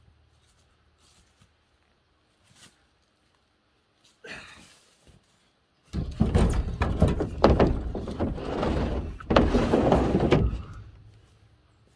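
A heavy firewood log round thuds down onto a pickup truck's ribbed bed liner about six seconds in, then scrapes and knocks as it is shoved along the ribs, with a second hard thud a few seconds later.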